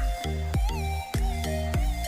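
Background electronic dance music with a steady thumping beat and a deep bass line.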